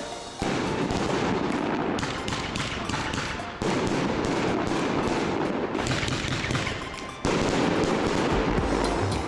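Fireworks going off: a dense, rapid run of crackling bangs that keeps going, surging sharply louder about half a second in, again at about three and a half seconds and again at about seven seconds.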